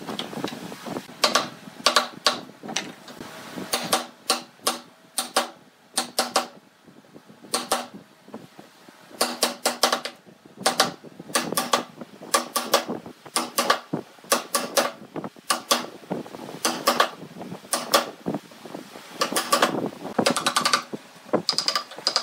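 Wooden mallet striking the handle of a wood chisel in quick, irregular runs of taps as the chisel chops into a wooden board, with a brief lull about seven seconds in.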